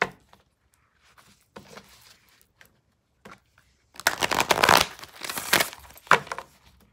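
A deck of oracle cards being shuffled by hand. Quiet taps and slides of the cards come first. About four seconds in, a riffle shuffle sets off a rapid flutter of cards lasting about a second and a half, followed by a few sharper snaps as the deck is squared.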